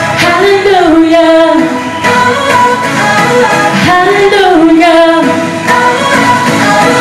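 Worship song in progress: a singer's voice with melodic rises and falls over held chords.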